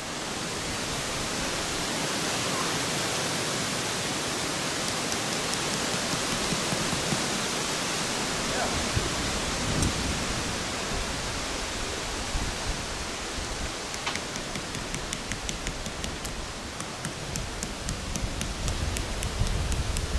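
Steady hiss of rain, with wind buffeting the microphone in low rumbles from about halfway through and light ticks in the last few seconds.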